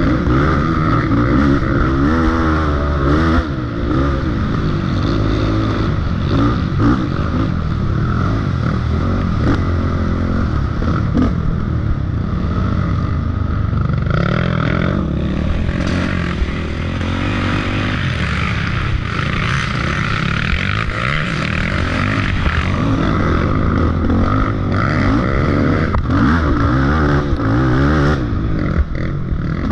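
Dirt bike engine revving up and down again and again as the bike is ridden along a rough trail, heard from on board.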